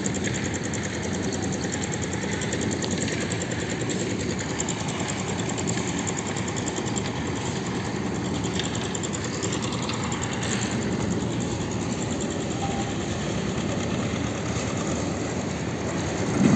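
A motor-driven machine running steadily with a fast, even buzz, rising to a louder burst at the very end.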